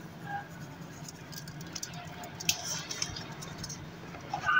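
Quiet eating and handling sounds: fingers picking at and gripping a chicken burger's bun, soft small clicks and rustles over a low steady hum. Right at the end a short, high-pitched squeak-like tone sets in.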